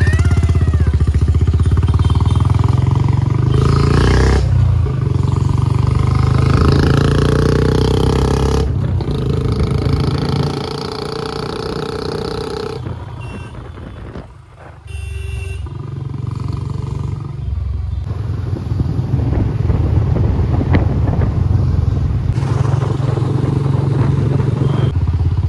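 Motorcycle engine and exhaust running under way, a deep steady low exhaust note from a big aftermarket silencer fitted to the bike. The sound dips briefly about fourteen seconds in, then picks up again.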